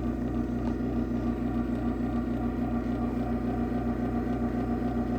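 Craftsman 139.53915DM garage door opener running, its motor and drive giving a steady, even hum.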